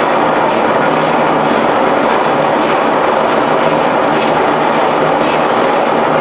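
Many belt-driven cotton power looms running together: a loud, steady, dense mechanical clatter.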